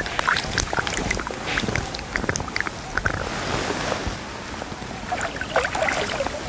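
Water splashing in short, irregular spurts over a steady hiss of moving water and wind on the microphone.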